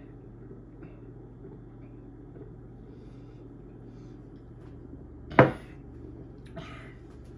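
An empty glass beer glass set down on a wooden table with one sharp knock about five seconds in.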